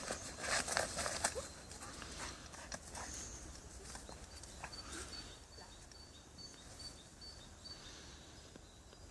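A golden retriever on a retrieve, with rustling bursts in the first second or so. A short high chirp then repeats about three times a second for several seconds.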